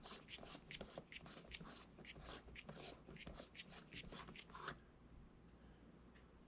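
Faint rapid clicks and rustling of hands handling a small camera, stopping about five seconds in.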